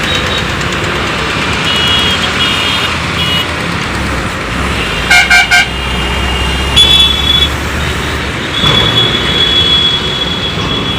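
Kobelco SK210 excavator's diesel engine running steadily, with three quick blasts of a vehicle horn about five seconds in. Thin high-pitched tones come and go over the engine.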